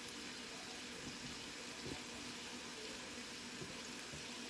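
Chicken tenders cooking in a pan on low heat, a faint, steady sizzle and simmer in their own juices and lemon juice.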